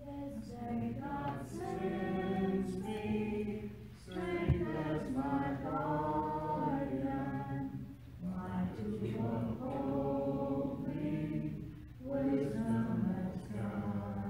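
A choir singing a hymn, mostly unaccompanied, in phrases of about four seconds with short breaks between them. A brief low thump comes about four and a half seconds in.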